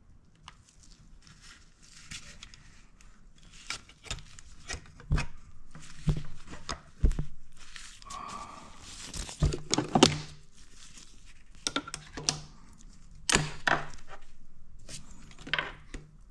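Hand work on a motorcycle engine: irregular clicks and knocks of tools and metal and plastic parts, with rustling between them.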